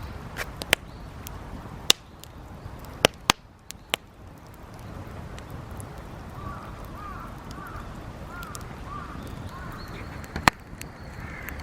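Scrap-wood campfire crackling: a steady hiss broken by sharp, irregular pops, several in the first four seconds and one loud pop near the end.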